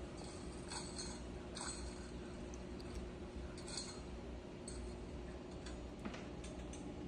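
A toddler eating finger food: a handful of short, irregular clicks and smacks from her mouth and fingers, over a steady low hum.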